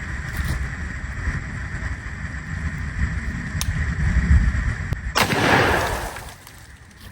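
Wind rumbling on the microphone, then about five seconds in a single semi-automatic shotgun shot, firing an 8 shot birdshot load, that dies away over about a second.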